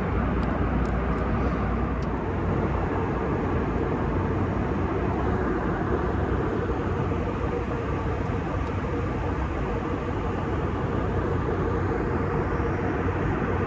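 Steady rumble and hum of a vehicle in motion, heard from inside, with a few faint clicks about a second in.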